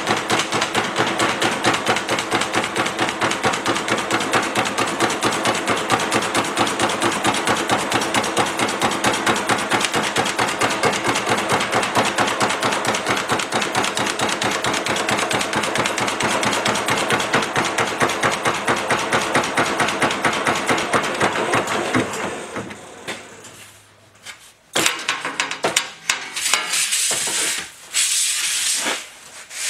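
Reciprocating flanging machine (Erco-type forming and flanging machine) running, its dies hammering a sheet-steel flange in a rapid, even stream of strokes several times a second as the flange is planished square. The hammering winds down and stops a little over 20 seconds in, followed by a few short noisy bursts near the end.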